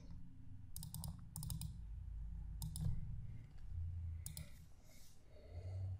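Clicking from a computer mouse and keyboard, in about four short clusters of sharp clicks spread through a few seconds.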